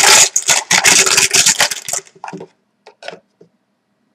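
A hand rummaging through a clear plastic tub of draw chips, a loud dense clatter of chips knocking together, stops about two seconds in. A few separate clicks follow as a single chip is picked out.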